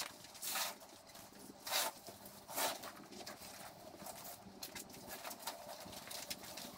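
A few scuffing footsteps in work boots on a concrete floor, the loudest three in the first three seconds, with light rattling and rustling of chicken wire being unrolled and handled.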